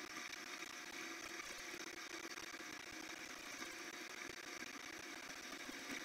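Combine harvester running while cutting corn, heard from inside its closed cab: a steady mechanical hum with a few faint steady tones.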